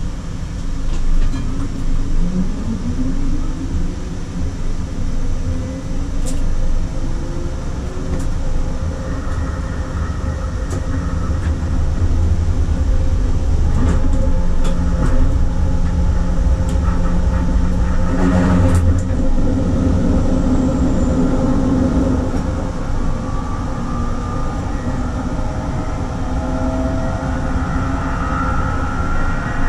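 SL95 tram running on its rails with a steady low rumble; a few seconds in, a whine rises in pitch as it picks up speed. Sharp clicks come from rail joints or points, with a louder one about two-thirds of the way through, and faint gliding higher tones near the end.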